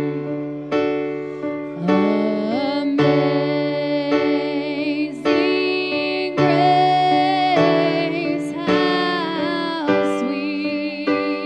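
Slow music: sustained keyboard chords struck about every second and a bit, with a voice singing long, wavering notes over them.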